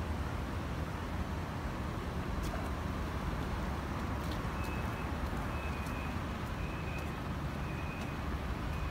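Steady low rumble of city street ambience: distant traffic and air on a phone microphone, with a few faint footstep clicks. From about halfway through, a faint short high beep repeats roughly once a second.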